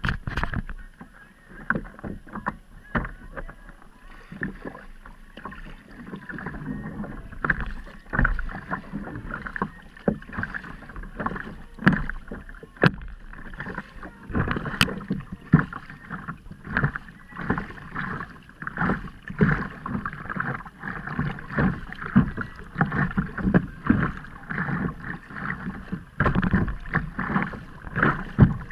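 Water splashing and lapping against a kayak on the sea in short, irregular bursts.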